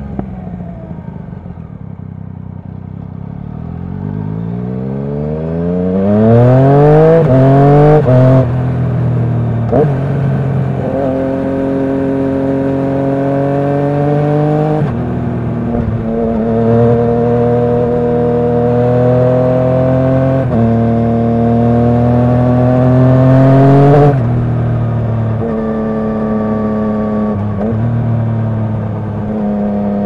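Yamaha MT-09's inline three-cylinder engine through an Akrapovic titanium Racing Line exhaust, on the move. At first the revs fall. Then it accelerates hard with rising revs and several quick upshifts, and keeps pulling through the gears. About three quarters of the way through the throttle shuts and the revs drop to a lower, steady run.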